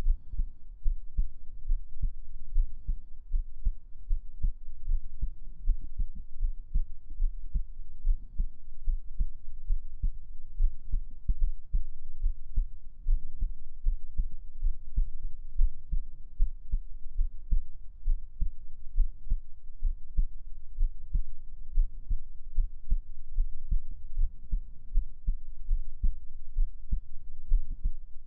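A human heartbeat heard close up: a steady, even run of low, muffled thumps.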